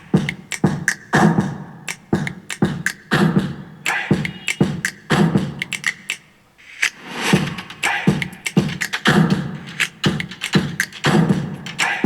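A song with vocals and a strong beat playing through a repaired boAt Stone 1000 Bluetooth speaker, both of its drivers working: the test playback that shows the no-sound fault is cured.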